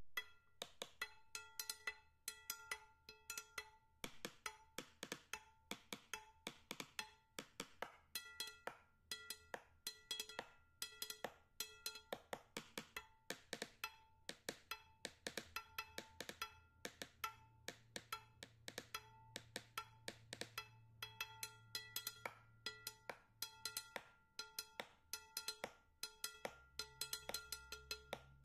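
Quiet percussive background music: a quick, regular pattern of pitched wooden-sounding knocks, with a low bass tone coming in partway through, dropping out, and returning near the end.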